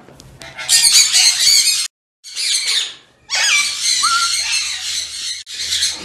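Parrots screeching, harsh and high-pitched, in three loud stretches broken by two short pauses about two and three seconds in.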